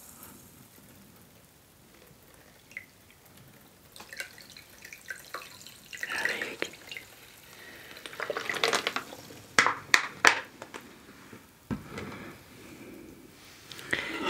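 Quiet liquid dripping and trickling, broken by a few sharp clicks about two thirds of the way through.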